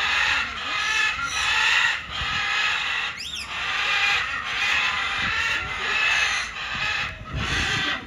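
Birds chattering, with one short high whistle rising and falling about three seconds in.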